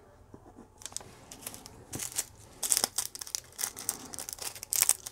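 Small plastic bag of diamond-painting drills crinkling in short irregular bursts as fingers turn it over.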